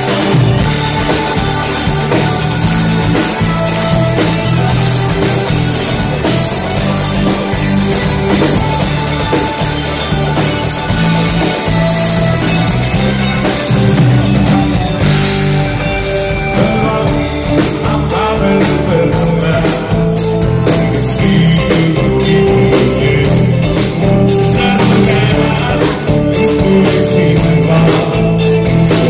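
Rock band playing live through the PA: amplified electric guitar over a drum kit, with a steady low end and a constant run of drum hits.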